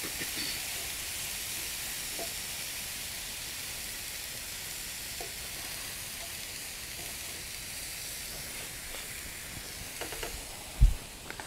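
Tomato masala sizzling in a nonstick frying pan: a steady hiss that slowly fades, with a few light clicks as a plastic spatula stirs it. Near the end comes a single loud thump.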